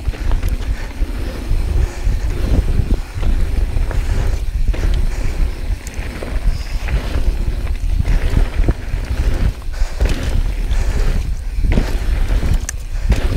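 Mountain bike ridden on a dirt trail: wind buffeting the action camera's microphone over tyre and bike noise, with the rider's heavy breathing coming through about once a second.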